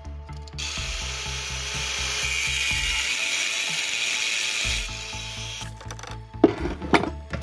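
Angle grinder disc cutting into a steel tube clamped in a vise, running for about four seconds from under a second in. A few sharp metal clanks follow near the end, with background music carrying a steady beat throughout.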